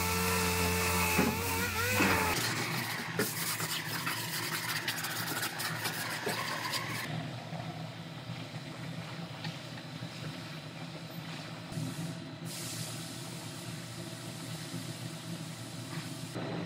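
Small handheld disc sander running against sheet metal, its pitch dipping and rising before it stops about two seconds in; after that, quieter scattered clicks and a steady low hum.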